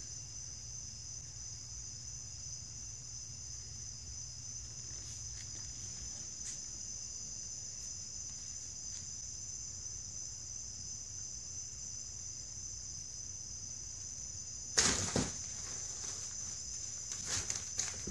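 A cat scrambling at a nylon cat tunnel on a hardwood floor: one sudden loud rustle and knock about fifteen seconds in, then a few lighter taps near the end. Under it all runs a steady high-pitched whine.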